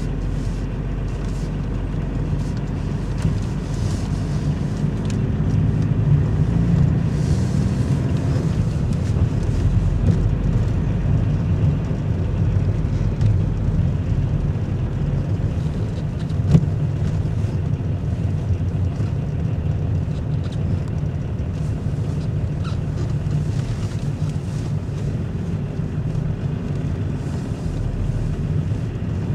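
Car engine and tyre rumble heard from inside the cabin while driving slowly, steady and low, with one sharp knock about halfway through.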